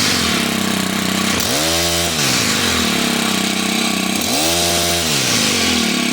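Stihl HT 101 pole saw engine running loud and revving, its speed dipping and rising again twice. It runs cleanly now that its loose carburettor isolator block has been tightened down.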